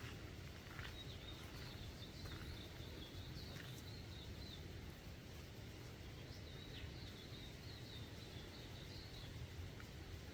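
Native bush ambience: a steady low rumble, with a high, wavering chirping call that comes in two stretches of about three seconds each.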